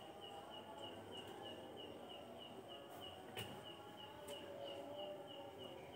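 Faint insect chirping: short high chirps at one pitch, repeated in a steady rhythm of roughly three a second, with a few soft clicks.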